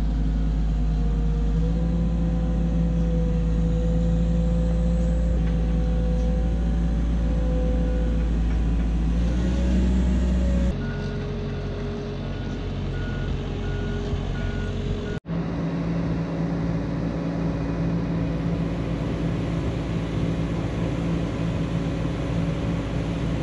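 Boatyard travel lift's engine running steadily. A warning beeper sounds a run of short, even beeps around the middle.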